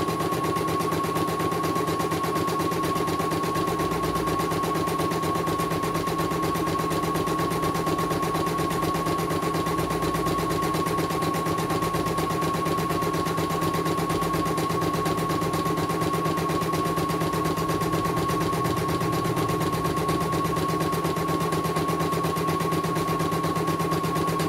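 CNY E900 portable computerized embroidery machine stitching steadily, its needle running at a fast, even rate over a constant high motor whine. The test embroidery is running smoothly.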